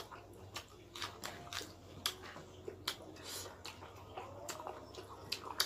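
Close-miked eating: people chewing and biting into food, with scattered sharp crunches and mouth clicks.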